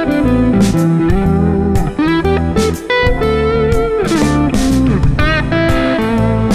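Ibanez electric guitar playing a fast solo line over a backing track with drums and bass, with bends and vibrato. The line is an E minor 7 arpeggio laid over an A minor chord, so it sounds as A minor 11.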